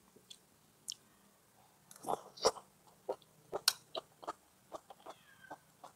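Mouth sounds of eating hot pot food: chewing and lip-smacking as a run of short, irregular smacks starting about two seconds in, after a quieter opening.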